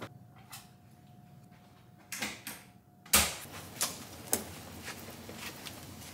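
A few soft clicks and knocks of a hotel room door and its latch. About three seconds in there is a sudden cut to wheeled suitcases rolling along a carpeted corridor, with footsteps and occasional knocks from the luggage.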